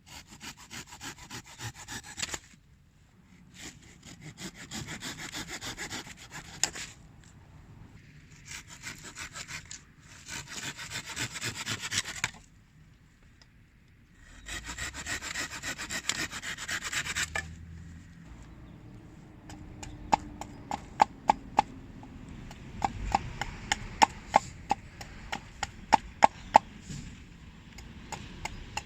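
Hand saw cutting wood in four bouts of quick back-and-forth strokes, followed about twenty seconds in by a run of sharp knocks with a short ringing tone.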